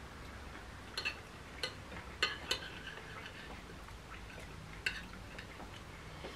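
Fork and knife clinking and scraping against a plate while eating: about six short, sharp clinks, most of them between one and two and a half seconds in, with one more near five seconds.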